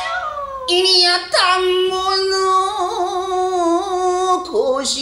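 Rōkyoku (naniwa-bushi) narrator singing a long drawn-out vocal phrase in a gravelly voice, holding a note that wavers and bends in pitch, stepping down to a lower note near the end.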